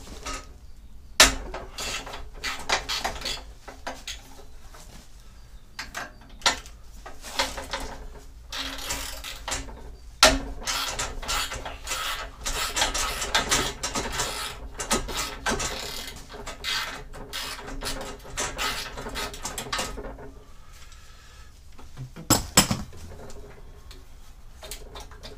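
Hand tools and loosened fittings worked on a car's stripped front end around the radiator and condenser support: irregular clicks, clinks and scraping of metal and plastic parts. Sharp knocks come about a second in, around ten seconds in and near the end.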